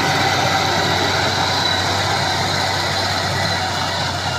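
Valmet tractor's diesel engine running steadily.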